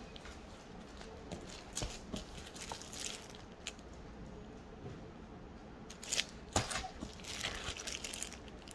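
Clear plastic magazine sleeves crinkling as the magazines are handled, in short scattered rustles that come in two clusters, the second, about six seconds in, the louder.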